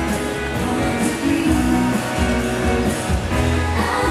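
Live pop song played over a PA system: a steady amplified backing with guitar and bass, and a woman singing into a microphone.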